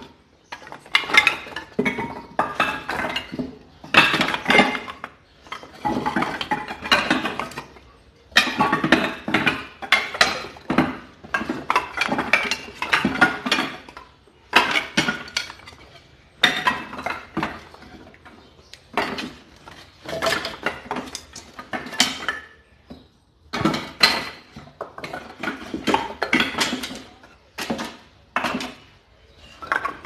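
Split firewood pieces knocking and clattering against one another in repeated bursts of a second or two, with short pauses between.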